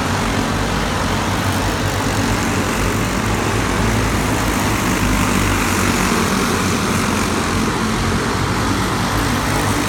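Racing kart engines running on the track, a steady mechanical drone with no clear revs or pauses.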